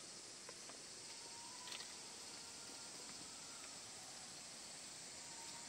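Quiet outdoor ambience: a steady high insect drone, with a few faint short tones and soft clicks.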